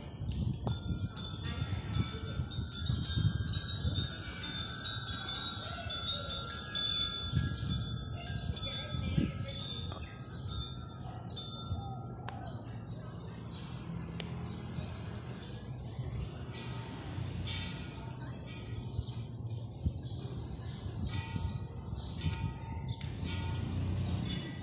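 Thai temple bells chiming, several metal bells sounding together with overlapping ringing tones that fade out about halfway through. Short high chirps, like birds, follow in the second half.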